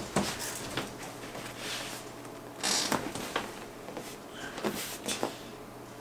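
Clothing rustle and a few soft knocks and clicks as a man climbs down off a padded chiropractic adjustment table and moves about, with one longer rustle a little before the middle, over a steady low hum.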